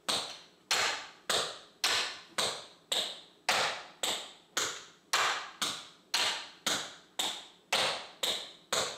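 Tap shoes striking a practice board, sharp taps each with a short ring, in a slow, even rhythm of about two a second: the toe taps and stamps of a repeated toe, toe, stamp step.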